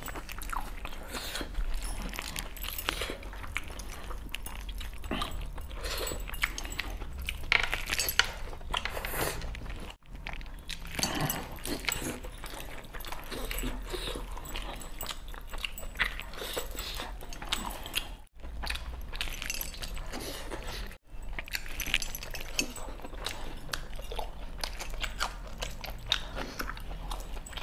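Close-miked eating: a man chewing and smacking his lips on mutton and chicken curry eaten by hand, with wet squelches as his fingers mix the gravy and rice. The sound cuts out briefly three times.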